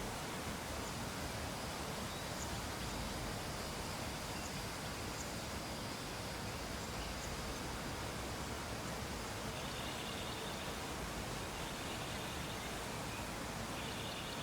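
Steady, even background hiss of room or environmental noise. Faint high chirping comes in during the last few seconds.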